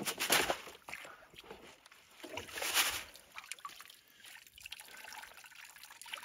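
Water sloshing and splashing as a gold sieve full of wet gravel is worked in a tub of water, with louder splashes at the start and about halfway through. Quieter trickling and dripping follow as the sieve is lifted out.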